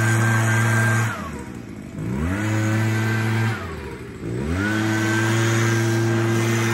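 Leaf blower run in spurts. It is already running at a steady pitch, winds down about a second in, whirs up again around two seconds, winds down, and whirs up once more at about four and a half seconds and keeps running.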